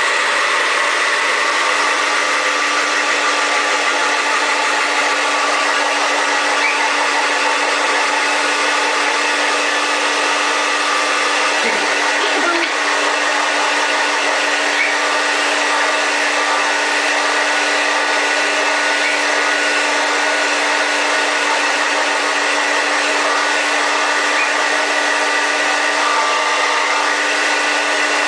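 Hand-held hair dryer running steadily on one setting, a constant whirring blow with a steady low hum from its motor.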